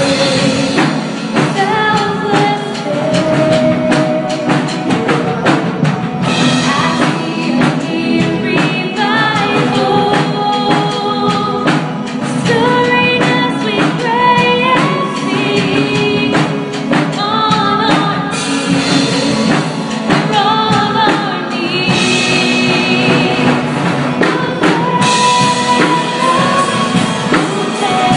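A woman singing a praise song into a microphone over a live band, with a steady drum beat under the vocal.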